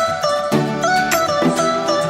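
Instrumental music: a stepping melody over regular percussive beats.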